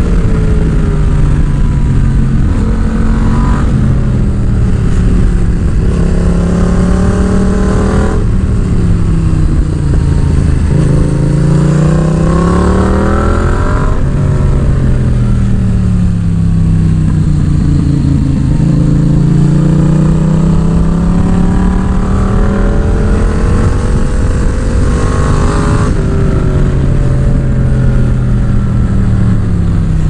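Yamaha MT-07's parallel-twin engine under way, heard from the rider's seat. The revs climb in long rising sweeps and fall away again and again, with sudden drops in pitch about eight, fourteen and twenty-six seconds in.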